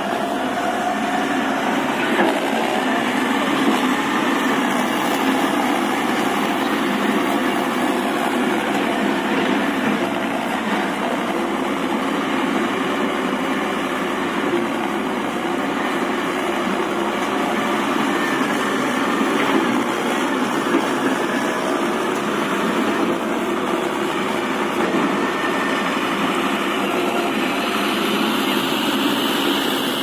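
Caterpillar tracked excavator's diesel engine running steadily.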